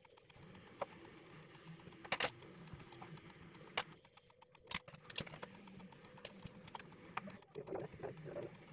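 Scattered light knocks and clicks at irregular intervals over faint background noise, with a sharper click about five seconds in.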